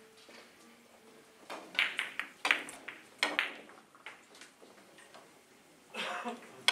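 Carom billiard balls clicking sharply against each other in three-cushion play: a run of clicks between about one and a half and three and a half seconds in, then a cue strike and another sharp click near the end.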